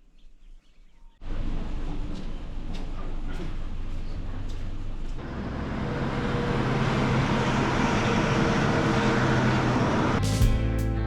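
A vehicle driving on the road: steady road and engine noise that cuts in suddenly about a second in, after a moment of faint bird sounds, and grows a little fuller about halfway through. Guitar music comes in near the end.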